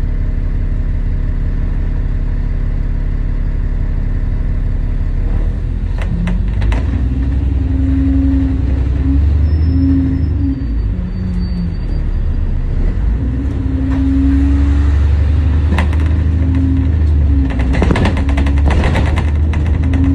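Double-decker bus engine running steadily while stopped, then pulling away about five seconds in and running louder under load, with a few knocks and rattles from the bus body.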